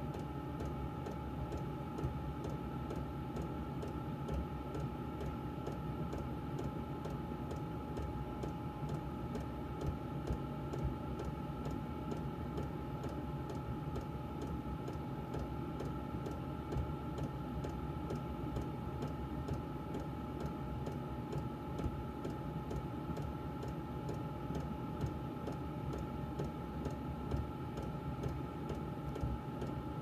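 VEVOR diesel air heater running: a steady blower-fan whir with a two-tone hum over a low combustion rumble, and the fuel dosing pump ticking evenly at about two and a half ticks a second, its set pump rate.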